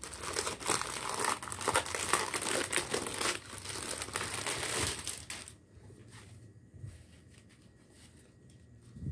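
Clear plastic packaging bag around a folded hijab crinkling as hands pull at it and open it. The crinkling stops about five and a half seconds in.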